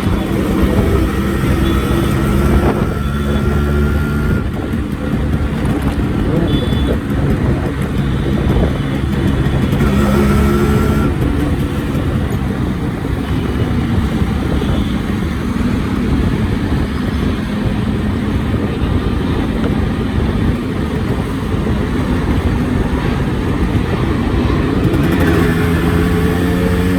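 Yamaha RX-series two-stroke single-cylinder motorcycle engine running, its pitch rising and falling as it is revved several times.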